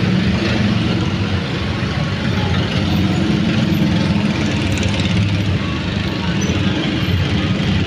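Steady rumble of a passenger train running away along the track.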